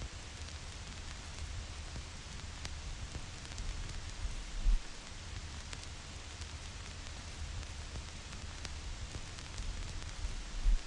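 Vinyl record surface noise: a steady hiss with scattered crackles and pops from the stylus tracking the groove, over a low rumble. Two louder low thumps come through, one a little before halfway and one near the end.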